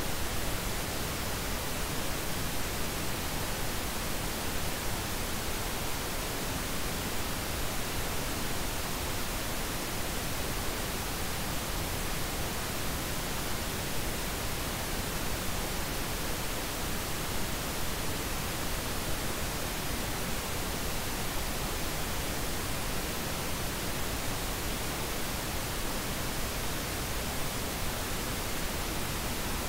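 Steady, unchanging hiss of noise spread evenly from low to high pitches: a generated noise track of the kind played in subliminal 'frequency' videos.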